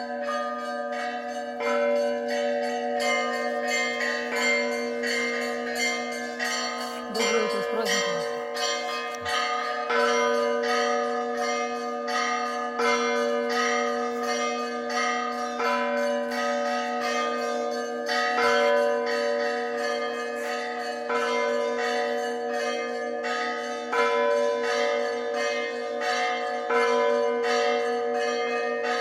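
Orthodox monastery bells pealing to call the faithful to service. Quick strokes on small bells ring over the sustained hum of larger bells, with a heavier stroke about every three seconds.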